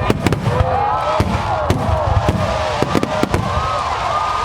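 Fireworks display: rapid cracks and bangs of bursting shells over a low rumble, with gliding whistles rising and falling. The cracks come thickest near the end.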